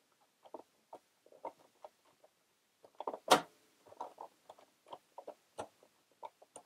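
Small plastic clicks and taps from hands handling the snap-on buttonhole presser foot of a mini sewing machine, with one sharper, louder click about halfway through.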